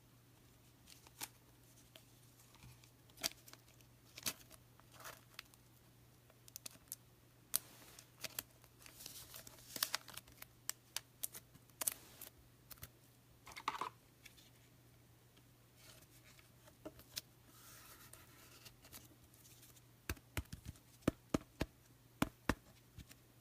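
Trading-card packs and cards being handled: faint scattered clicks and taps, with a short tearing, crinkling wrapper sound about nine seconds in and another around seventeen seconds.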